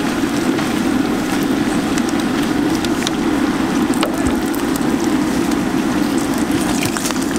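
Battered fritters deep-frying in a large wok of oil: a loud, dense, steady sizzle and bubbling, with a few light clicks of wire skimmers against the pan.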